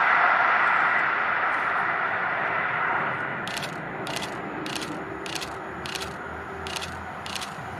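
Rushing noise of a train running past, fading away over the first three seconds. A string of short, sharp high clicks follows, about one every half second, with a faint low hum underneath.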